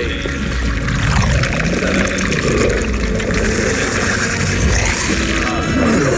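Film sound design of black alien symbiote goo spreading over a man's body as he transforms into a fanged creature: liquid-sounding effects over a heavy low rumble, with a falling sweep near the end.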